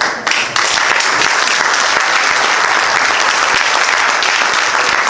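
Audience applauding, beginning just after the start and keeping up a steady, dense clapping.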